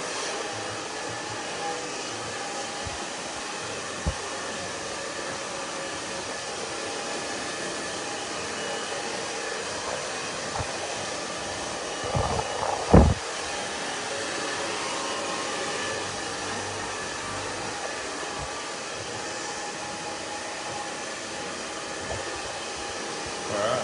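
Handheld hair dryer with a concentrator nozzle blowing steadily while drying short hair. A couple of low thumps sound about halfway through.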